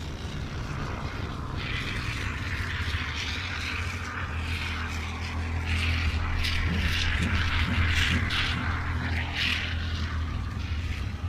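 Can of expanding spray foam hissing as foam is dispensed, starting about a second and a half in and sputtering in short spurts in the second half, over a steady low hum.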